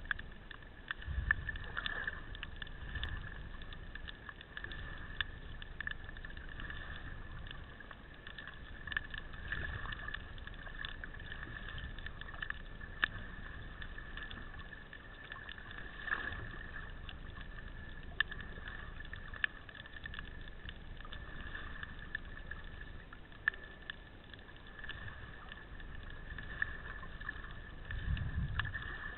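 Underwater ambience picked up by a submerged camera: a steady muffled hiss with scattered sharp clicks throughout and a few low thumps, the clearest about a second in and near the end.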